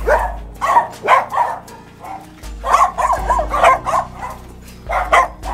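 A small dog yipping and whining in runs of short, pitched calls, with brief pauses between the runs.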